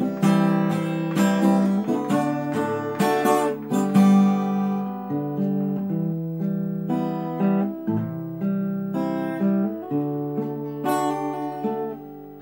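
Nylon-string classical guitar strummed in a steady run of chords without singing. The last chord rings out and fades near the end.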